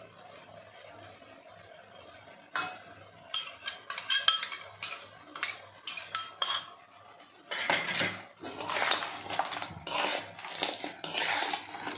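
Metal spatula stirring whole crabs in a metal wok, scraping and clanking against the pan. It starts about two and a half seconds in with separate clanks and turns into denser, steadier scraping in the second half.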